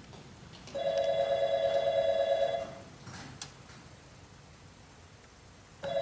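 Telephone ringing: one ring of about two seconds, then the next ring starting at the very end.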